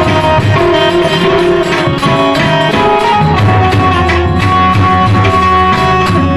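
Instrumental passage of live Gujarati bhajan music: a melody instrument plays held notes over a steady percussion beat, with no singing.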